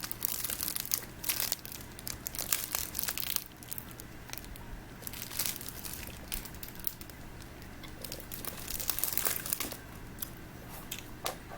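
Plastic wrapper of a Little Debbie snack cake crinkling as it is handled and opened, in irregular bursts, busiest in the first few seconds and again near the end.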